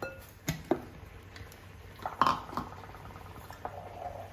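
A few light knocks and clinks of kitchen utensils and containers being handled, with a brief faint rattle about halfway through.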